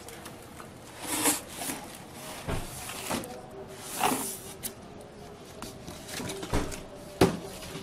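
Cardboard box of a heavy UPS being turned over and lifted off on a wooden table: cardboard scraping and rustling, broken by several dull knocks and thumps, with the sharpest knock near the end.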